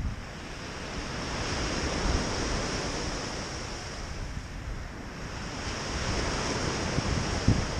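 Small Lake Superior waves breaking and washing up a pebble beach, the surf swelling about two seconds in and again near the end. Wind buffets the microphone underneath.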